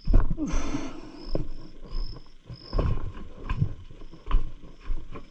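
Footsteps thudding on wooden steps and floorboards at an uneven pace, with a brief rustling scrape about half a second in. Insects chirp in an even, repeating pattern underneath.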